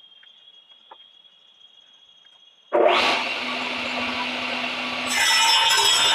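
A table saw is switched on a little over two and a half seconds in, starting with a sudden loud burst and then running steadily. Near the end its circular blade cuts through a bark-covered log, which adds a harsher, hissing sawing noise over the motor.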